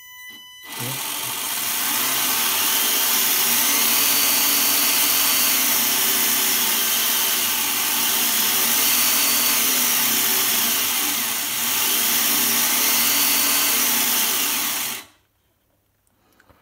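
Short electronic beep, then the WLtoys K696 RC car's small electric motor and drivetrain whirring at high speed for about fourteen seconds while the throttle is held open, before it cuts off sharply near the end.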